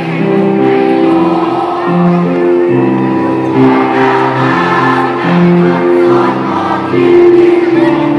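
School choir singing in harmony, several voice parts at once on long held notes.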